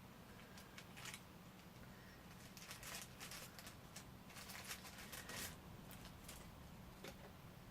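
Faint crinkling and rustling of thin plastic packaging being picked and pulled off a boxed figure, in a few short bursts about a second in and again from about three to five seconds, over a low steady hum.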